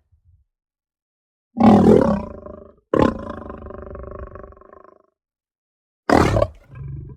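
Lion roar sound effects: a loud roar about one and a half seconds in, a second roar starting sharply just before three seconds and trailing off by five seconds, then a short loud burst about six seconds in followed by a quieter, lower call near the end.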